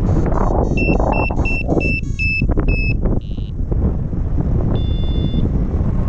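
Strong wind buffeting the microphone, with a paragliding variometer beeping over it: a quick run of about seven short beeps in the first three seconds, the vario's signal of rising air, then two longer tones near the end.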